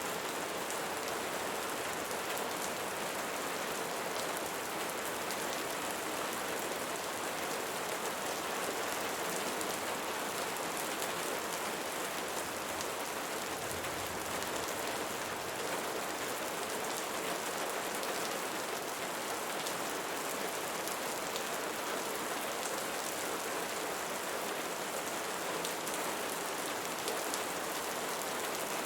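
Steady rain falling on a surface, a dense even hiss with fine patter of individual drops and no change in intensity.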